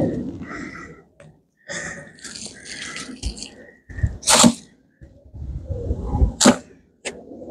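Hand-weeding in a raised bed: a small hand tool scraping through soil and plants rustling as they are pulled up. Two sharp, loud bursts come about two seconds apart in the second half.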